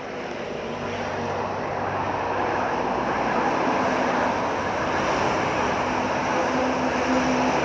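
Loud engine drone that swells over the first few seconds and then holds steady.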